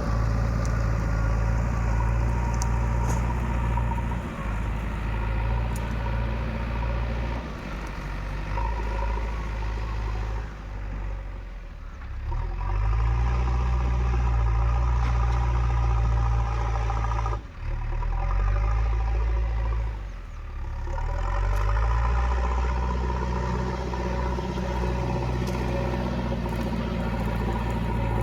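Diesel engine of a backhoe loader running under changing load while it works. The engine note drops briefly and picks up again several times, with a few faint clicks and clanks on top.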